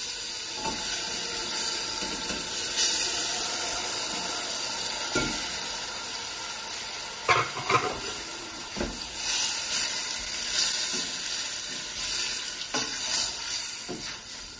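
Raw marinated chicken pieces sizzling as they go into hot oil and tomato base in a stainless steel pot, the sizzle slowly dying down as the meat cools the pan. From about five seconds in, a wooden spoon knocks and scrapes against the pot as the pieces are stirred.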